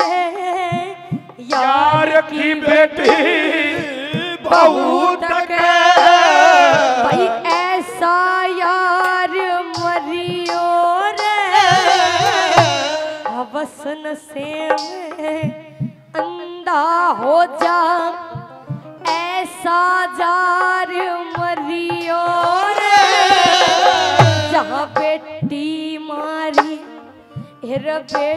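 A woman singing a Haryanvi ragni into a microphone, with live accompaniment: frequent hand-drum strokes and a steady held note beneath her voice.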